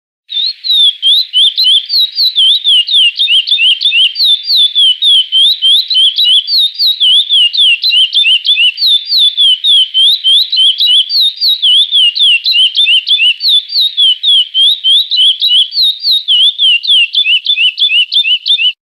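A chestnut-bellied seed finch (curió) singing the classic 'Praia' song: one unbroken run of quick whistled notes sweeping up and down, several a second, starting just after the beginning and stopping abruptly near the end.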